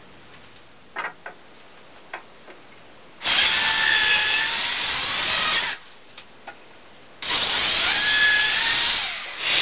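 Corded electric drill running in two bursts of about two and a half seconds each, drilling into the end of a 2x6 board while the top frame is put together, its whine sagging slightly under load. A few light knocks of wood being handled come before the first burst.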